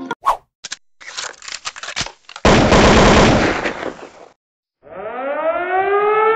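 Sound effects of an animated like, share and subscribe outro. A few sharp clicks and a stretch of crackling are followed by a loud noisy rush of about two seconds, which cuts off. After a short gap comes a rising pitched swoop.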